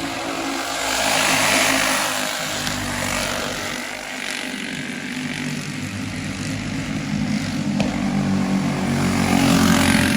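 Several racing go-kart engines running at high revs as the karts pass, swelling louder about a second in and again near the end.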